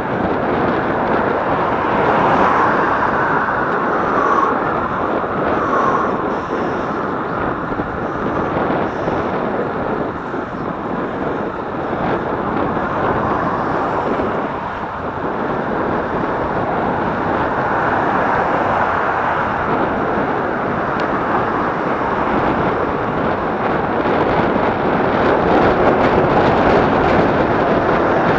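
Wind rushing over the microphone of a camera on a moving bicycle, a steady loud noise with traffic beneath it, growing a little louder near the end.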